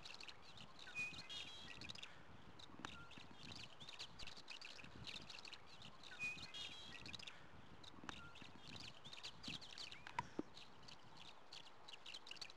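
Faint chorus of birds chirping, many short high chirps overlapping, with one song phrase heard twice about five seconds apart.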